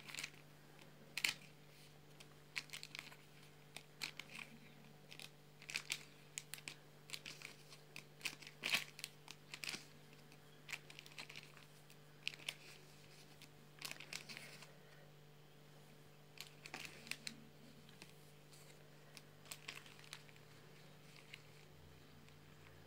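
Handfuls of stiff vinyl stickers being shuffled and spread out of a clear plastic bag, making scattered short crinkling and rustling sounds. A steady low hum from a freezer runs underneath.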